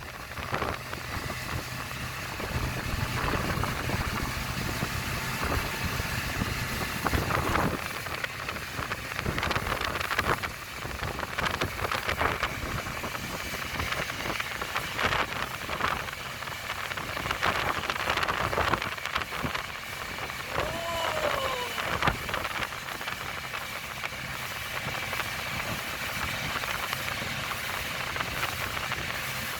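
Tow boat's engine running under way, with the rush of water spray and wind over the microphone. A short tone that rises and falls comes about two-thirds of the way through.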